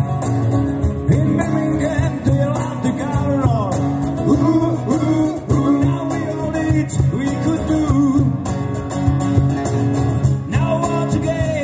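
Live band music: strummed acoustic guitars and drums, with a singing voice over them.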